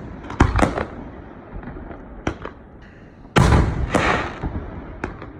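Aerial fireworks exploding. Two sharp bangs come close together about half a second in, then a lighter pop, then a loud burst about three and a half seconds in, followed by a string of smaller cracks.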